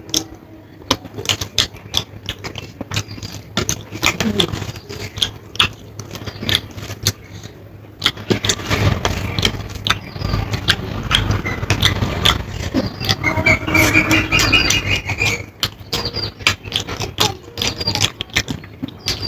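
Close-up eating sounds: chewing, and hands working rice on a plate, heard as many small clicks and smacks. About eight seconds in, an engine rumble swells for several seconds with a higher whine on top, then fades.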